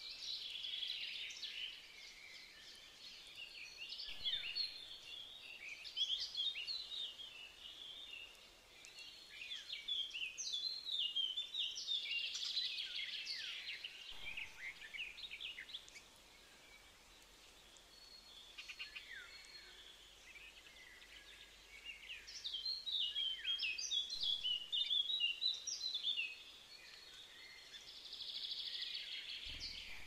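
Wild songbirds singing outdoors, in bouts of quick, high-pitched chirping and trilled song phrases with short quiet gaps between them.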